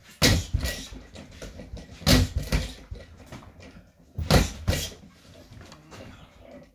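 Punches landing on a freestanding punching ball mounted on a pole stand, in three quick flurries about two seconds apart. Each flurry is a pair of hard thuds, with lighter knocks and rattling from the stand between them.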